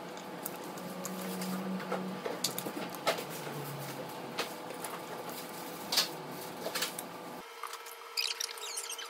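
Light clicks and taps of small embroidered brooches and price-tag stickers being handled and set down on ceramic plates, over a steady faint room hum.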